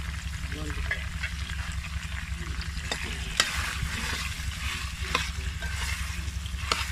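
Mutton liver sizzling as it fries in ghee in a steel pot, stirred with a metal ladle that scrapes and knocks against the pot a few times, over a low steady rumble.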